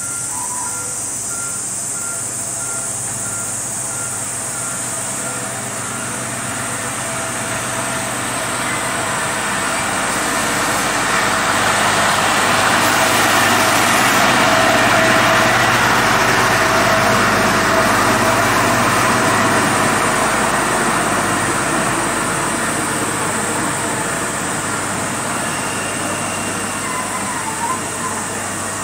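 Diesel locomotive of a 15-inch-gauge miniature railway pulling its coaches into the station. Its engine and running gear grow louder to a peak about halfway through as it passes, then fade as the coaches roll by.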